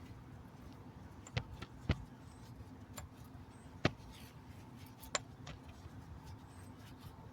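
Four sharp clicks and knocks of small metal brake parts and tools being handled, spaced irregularly over a low steady background hum.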